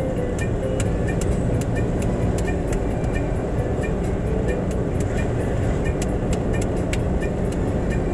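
Steady engine and tyre rumble of a moving road vehicle heard from inside, with frequent light clicks and rattles on top.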